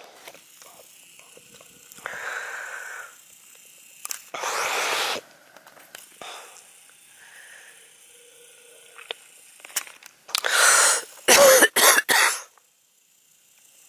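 A person coughing in short bursts: one about two seconds in, another around four and a half seconds, then a loudest cluster of quick coughs near the end.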